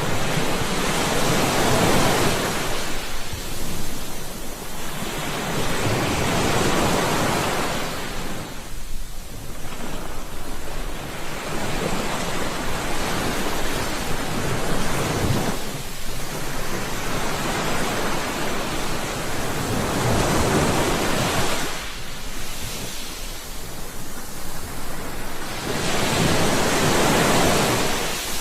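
Ocean waves breaking and washing on the shore, one after another, each swell of surf rising and falling over a few seconds.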